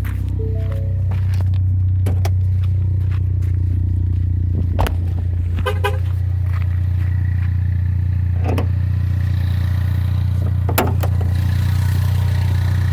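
Ford 2.3L EcoBoost turbocharged four-cylinder idling with a steady low hum, with a few sharp clicks, including a quick run of several about six seconds in. The owner takes the engine's noise for a blowby problem, with air streaming from the crankcase.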